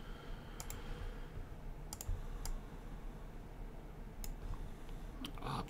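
Scattered clicks from a computer mouse and keyboard, about eight sharp single clicks spaced irregularly, faint against a quiet room.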